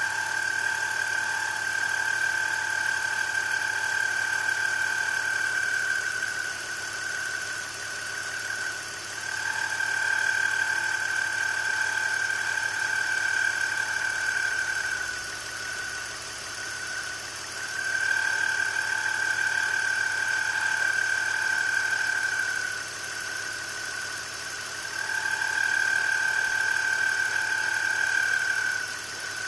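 BMW E46 engine idling with a high-pitched squeal from a bad belt pulley, which swells and fades about every seven to eight seconds.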